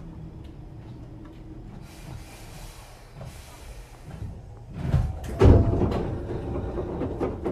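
Sliding passenger doors of a Hankyu 8000-series train working: a short hiss of air, then loud knocks and a heavy thud about five seconds in as the doors shut, over the low hum of the standing train.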